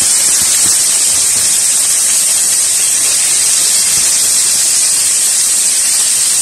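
Carrot sticks, onion and garlic sizzling in hot oil in a frying pan: a steady hiss.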